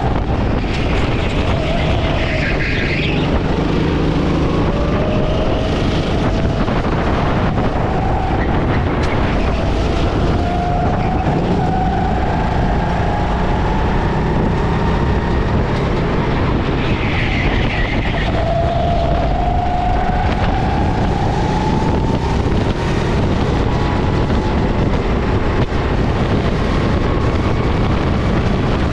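Go-kart engine from onboard, revving up along the straights and dropping back into the corners several times, over a steady rumble.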